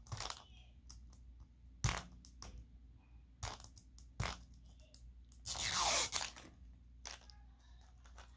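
Plastic crackling and clicking as fingers pick at and peel the label of a 5 Surprise Mini Brands plastic capsule ball. There are scattered sharp clicks throughout, and a longer tearing crinkle of plastic a little over five seconds in.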